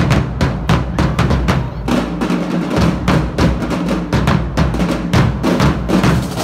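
Marching drumline playing loud together: bass drums and snare drums beating a fast, dense rhythm, with crash cymbals striking through it.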